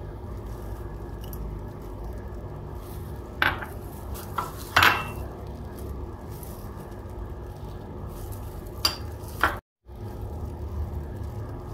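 Small glass bowls clinking against a plate as spices are tipped out of them: a few short sharp clinks in two groups, about a third and three quarters of the way through, over a steady low background rumble.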